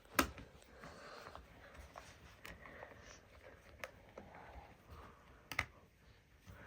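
Faint handling of a plastic baby rocker's battery compartment, with one sharp click just after the start and a few softer clicks spread through the rest.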